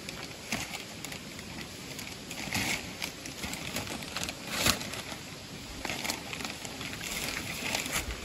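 Plastic tarp sheeting crinkling and rustling in irregular crackly bursts as it is pulled and tied down at a gazebo's top corner.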